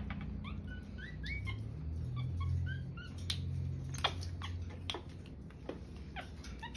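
Capuchin monkey giving a quick run of short, high, upward-sliding chirps over the first few seconds, followed by a few sharp clicks from the wire cage as it climbs.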